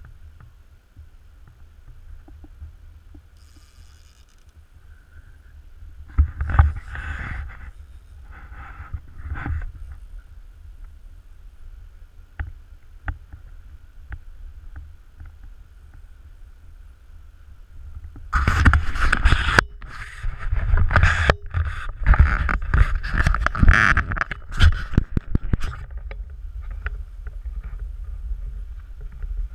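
Wind buffeting an action camera's microphone: a steady low rumble, with louder crackling gusts a few seconds in and again through most of the second half.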